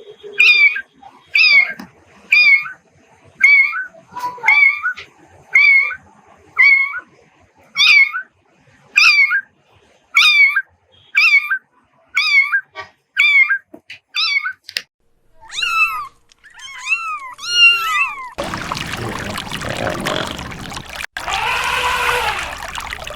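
Cat meowing: a quick run of short, high-pitched meows, about one every second or less. These give way to a few longer, falling meows. About three quarters of the way through, the meows stop and a steady rushing noise takes over, with one more drawn-out call in it near the end.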